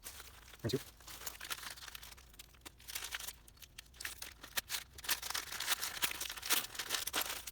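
Packaging crinkling and rustling as a model train car is unwrapped, with scattered irregular clicks and taps and a brief soft knock about a second in.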